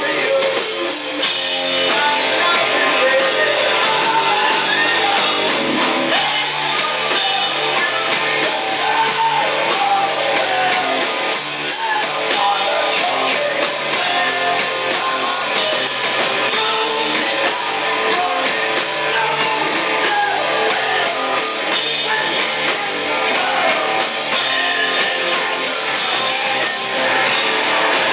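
Live rock band playing loudly: a singer into the microphone over electric guitar and a drum kit, without a break.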